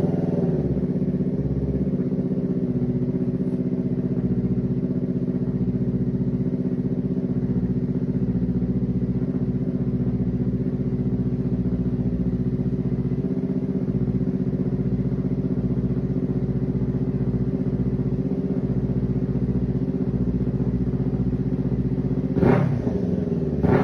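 Kawasaki Ninja 500's parallel-twin engine idling steadily, then revved briefly near the end.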